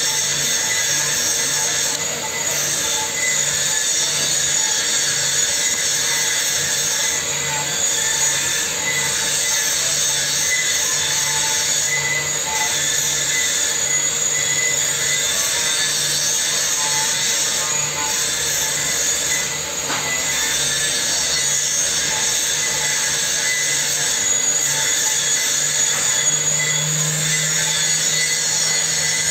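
Steady mechanical noise, a continuous hiss with a few constant tones and a low hum, unbroken throughout.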